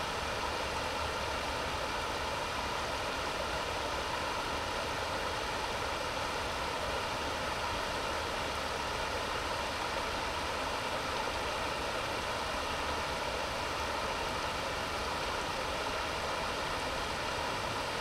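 Creek water spilling over low rock ledges in small cascades: a steady, even rush that does not change.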